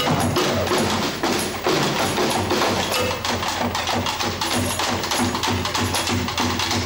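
Live band playing a song, with drums keeping a steady beat.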